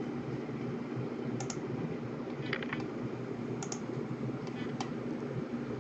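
Clicking at a computer while a team randomizer is run repeatedly: a few short, sharp clicks about a second apart over a steady low hum.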